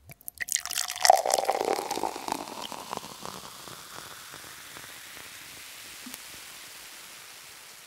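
A crackling fizz, densest in the first two seconds, that thins into a steady hiss and fades near the end.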